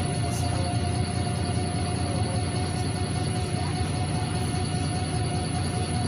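Steady drone inside a NefAZ 5299 city bus on the move: the Cummins ISBe diesel engine and road noise, heaviest in the low range, with a faint steady whine over it.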